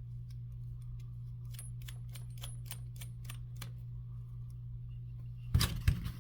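Series of light clicks, several a second for about three seconds, as the nut holding a replacement golf-caddy power button is tightened down. A louder knock or clatter follows near the end, over a steady low hum.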